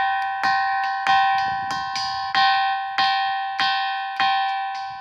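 A ringing stone struck again and again with another stone, about eight evenly spaced strikes a little under two a second. Each strike gives a clear bell-like ring that carries on into the next.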